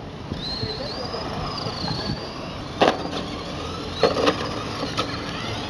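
Remote-control race cars running on a track, their motors making a high whine that rises and falls as they speed up and slow down. Several sharp knocks cut through it, once about three seconds in, then twice in quick succession and once more near the end.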